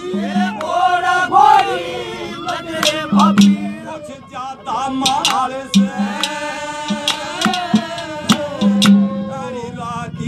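A male singer performing a Haryanvi ragni folk song in long, sliding held phrases, over the sharp strokes of a dholak hand drum.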